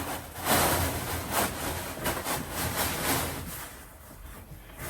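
Irregular rustling and handling noises, several short bursts over a low rumble, fading near the end.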